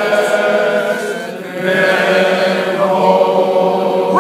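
A group of men singing a slow chant together in unison, holding long notes, with a short drop in volume about a second and a half in before the next phrase.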